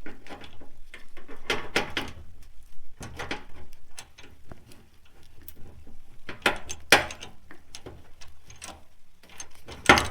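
Metal fuel-tank mounting hardware clanking and scraping as it is worked into slots on the tank: a string of irregular knocks and clicks, the sharpest just before the end.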